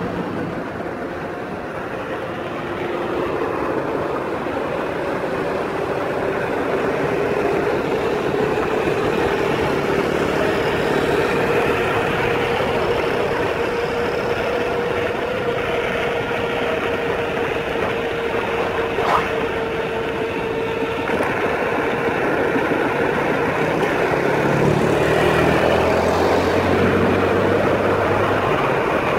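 Wind and road noise while riding a Minimotors Anoa EX+ electric scooter, with the steady whine of its 1000 W brushless DC motor rising slightly as it gathers speed. Near the end a motorcycle engine is heard close by for a few seconds.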